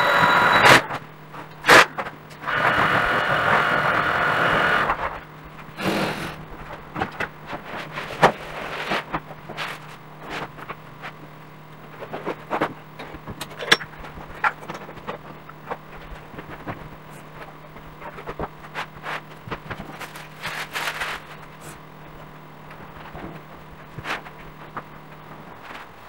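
A large area rug being handled and unrolled on a hardwood floor: scattered thumps, rustles and footsteps, after a loud scraping noise in the first few seconds. A faint steady hum runs underneath and stops near the end.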